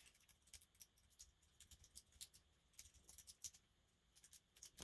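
Faint, irregular small metallic clicks and scrapes of a pick working inside the keyway of a cheap padlock.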